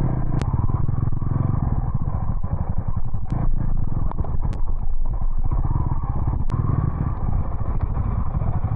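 Motorcycle engine running steadily under way, with a few sharp clicks over it.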